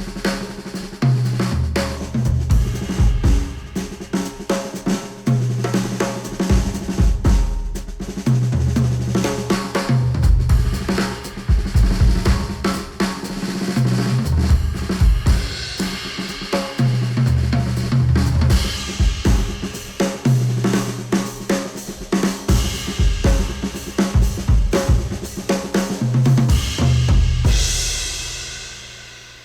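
Instrumental music with a full drum kit and a bass line repeating in short phrases, played through a headphone and picked up by measurement microphones on it. It fades out over the last couple of seconds.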